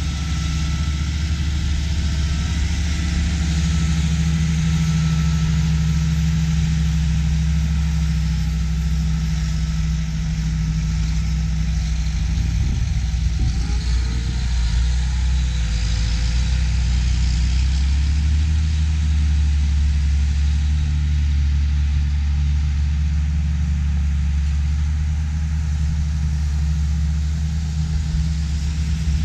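Diesel engines of John Deere 8000-series tractors running steadily while pushing and packing corn silage, a low, even engine drone.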